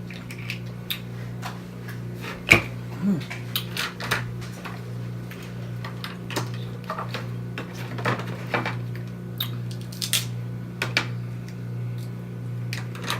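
Close-miked eating of a snow crab seafood boil: irregular wet mouth smacks and clicks, with one sharp click about two and a half seconds in, over a steady low hum.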